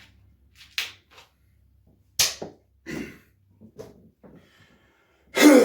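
A 1.25-litre plastic Sprite bottle fizzing in short sharp hisses as it is handled and its cap is worked to let the carbonation out, about seven bursts. The loudest and longest comes near the end.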